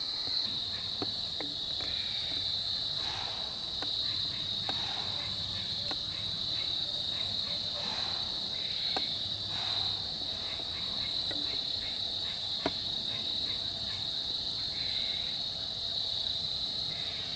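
A steady, high-pitched chorus of insects in the woods at dusk, with scattered faint clicks and soft rustles over it.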